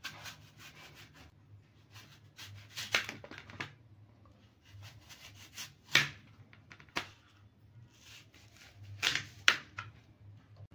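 Kitchen knife slicing a green apple on a plastic board: crisp cuts through the fruit and sharp taps of the blade on the board, in irregular strokes with the loudest near the middle and near the end.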